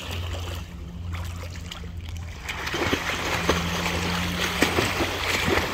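A child swimming freestyle, his kicking feet and arm strokes splashing the water. The splashing starts about two and a half seconds in, over a steady low hum.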